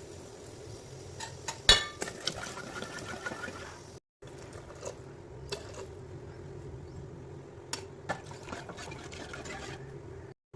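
Cooking pot with liquid in it being worked with a metal utensil: clinks and knocks of metal on the pan, the loudest about two seconds in, with liquid sounds over a steady low hum.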